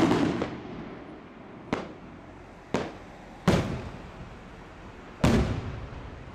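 Aerial firework shells from the 12th May Fireworks Factory bursting overhead: five sharp bangs at uneven gaps, one right at the start and the others about one and three quarters, two and three quarters, three and a half and five and a quarter seconds in. Each bang trails off in an echo.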